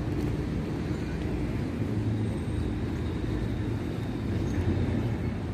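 Outdoor ambience: a steady low rumble of distant road traffic.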